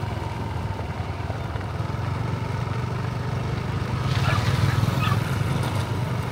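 A motor vehicle's engine running steadily as a low rumble, growing a little louder about four seconds in.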